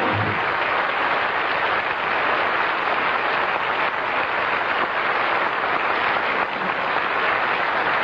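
Studio audience applauding steadily, just as the band's final chord breaks off.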